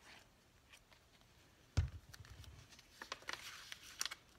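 A single thump about two seconds in, then light paper rubbing and rustling as an envelope is pressed flat by hand onto a cardboard journal cover.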